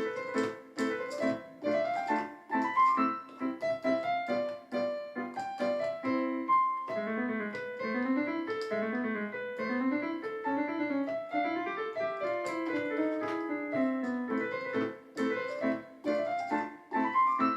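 Casio light-navigation electronic keyboard played in a piano voice: a lively tune of quick notes stepping up and down over a repeated lower accompaniment.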